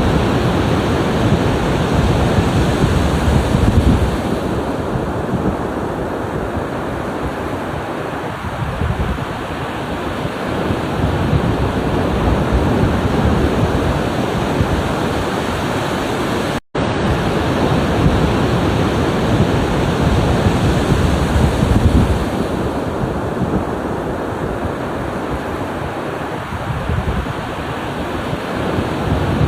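Ocean waves breaking and washing in as a continuous surf, swelling louder twice and easing between. The sound cuts out for an instant about halfway through, like a loop splice.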